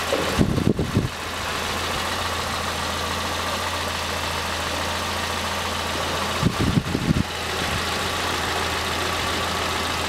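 Peugeot 207's 1.4 TU3 four-cylinder petrol engine idling steadily, just reassembled after a head gasket failure and cylinder head rework, running evenly. Two short low rumbles break in near the start and about two-thirds of the way through.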